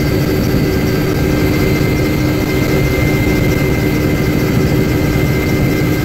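Helicopter engine and rotor running steadily in flight, heard from inside the cabin, with a constant whine over a low drone.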